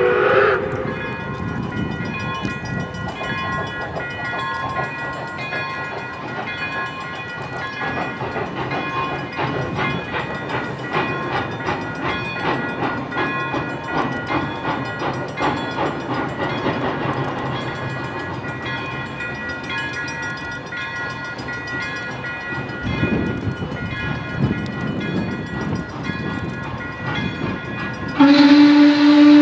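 Steam excursion train passing, its wheels and cars clattering in a steady rhythm over the rails. A whistle chord cuts off just at the start, and a loud, steady train signal blast starts about a second before the end.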